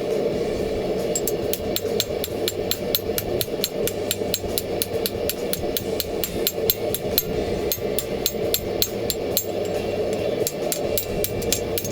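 Hammer blows on hot steel over an anvil, drawing out the steel in a steady rhythm of about three to four strikes a second, starting about a second in. A forge's steady roar runs underneath.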